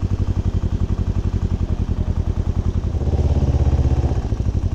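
Motorcycle engine running at low revs with an even, fast pulsing beat, swelling a little louder for about a second near the end.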